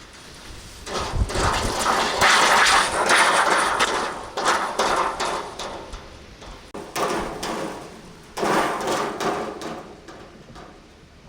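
Hurricane-force wind gusts coming in several surges, the first about a second in and others about halfway and near the end, with many sharp knocks and rattles of things being battered.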